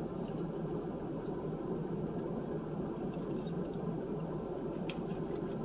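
Steady low background noise, with a few faint short clicks scattered through it.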